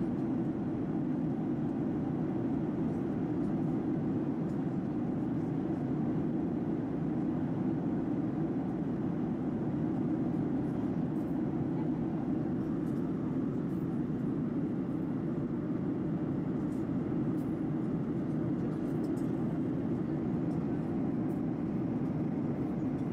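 Steady cabin noise of a Boeing 737-800 in cruise, heard inside the cabin at a window seat: an even, low rush of airflow and the CFM56-7B jet engines that holds constant throughout.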